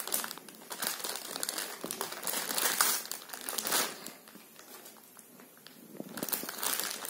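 Clear plastic polybag crinkling as hands handle and turn it, in irregular bursts that die down for a couple of seconds just past the middle and start again near the end.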